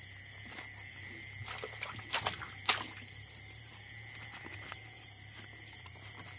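Steady chorus of night insects, a continuous high trill. About one and a half seconds in comes a short run of sharp crackles and rustles, the loudest near three seconds.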